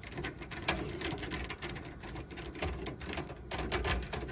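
A screwdriver driving a screw into a desktop PC's metal case: a run of irregular small metallic clicks and rattles.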